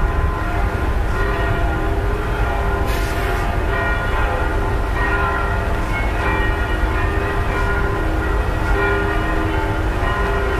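Church bells ringing, several tones overlapping and hanging on, over a steady low rumble.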